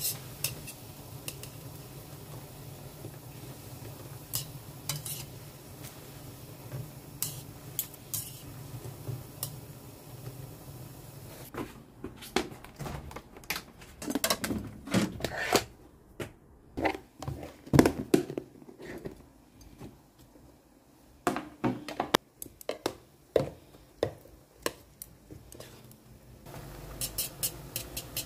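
Metal chopsticks clicking against a pan of boiling instant noodles, with a steady low hum underneath. In the middle stretch, a plastic food container is handled, giving a run of knocks and clicks. Near the end come quick, rapid clicks of chopsticks stirring the noodles in the pan.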